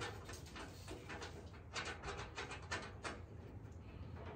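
Faint, irregular clicks and ticks of a nylon lock nut being threaded by hand onto a gas strut's stud, with a quick run of clicks around the middle.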